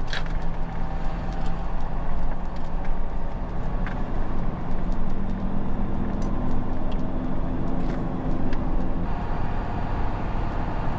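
Vehicle engine and tyre noise heard from inside the cabin while driving along a paved road, a steady rumble. The engine note rises a little about four seconds in and drops back about nine seconds in.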